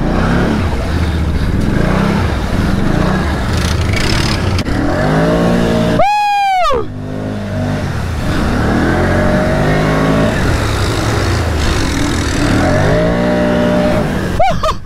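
Can-Am Outlander ATV engine revving hard through mud, rising and easing off about three times. About six seconds in there is a brief high sweep in pitch that climbs and drops.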